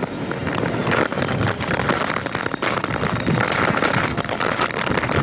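Cyclone-force wind with heavy rain, a loud, dense rushing noise with gusts buffeting the microphone.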